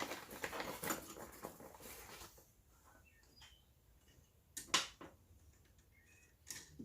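Hand work on the coilover's bottom mount: a couple of seconds of close rattling and rubbing from tools and hardware, then a few light ticks and one sharp metallic clink nearly five seconds in.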